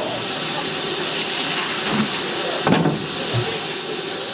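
A steam pannier tank locomotive hissing steadily as steam escapes from it, with a few short metallic knocks about two to three and a half seconds in.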